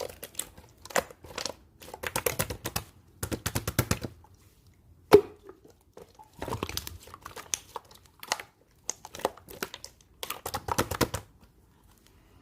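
Clear slime being squished and stretched by hand, making clusters of small crackling clicks and pops, with one sharp pop about five seconds in.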